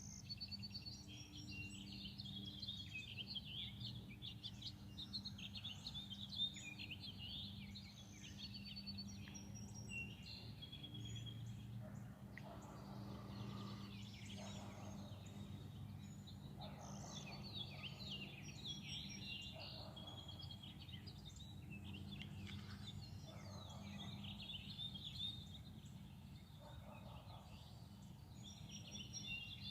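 Several songbirds chirping and singing together in a morning chorus, busiest in the first dozen seconds. From about twelve seconds in, a lower, rougher call repeats every couple of seconds. A steady low hum runs underneath.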